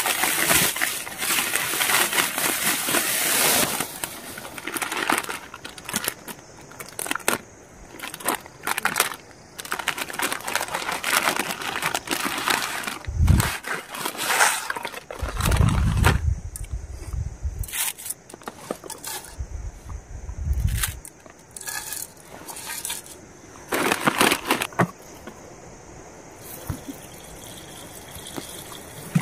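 A plastic noodle packet crinkling and rustling, with crackling snaps as dry noodles are broken into a metal cooking pot. A few dull thumps come about halfway through, and water starts pouring into the pot from a plastic bottle at the very end.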